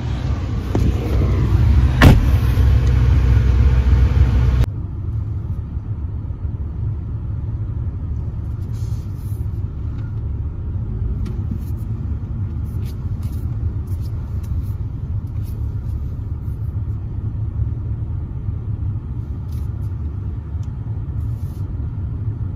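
Wind buffeting the microphone for about four and a half seconds, with one sharp click about two seconds in. Then a steady low rumble of a car running, heard from inside the cabin.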